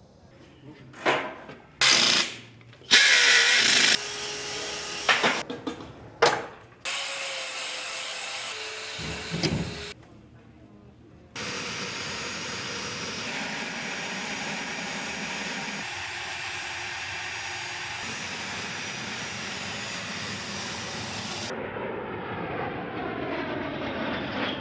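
A string of short, loud bursts and hisses, then a long steady roar from the A-10's twin TF34 turbofan engines running on the flight line. Near the end the sound changes, with gliding tones, to the jet heard in flight.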